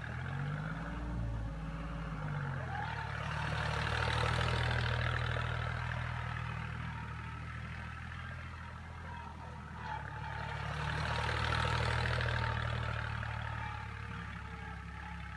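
Deutz-Fahr Agromaxx 4050E tractor's three-cylinder diesel engine running steadily under load while pulling a nine-tine cultivator through the soil. Its note wavers in the first couple of seconds, then holds steady, and the sound grows louder twice, around four and twelve seconds in.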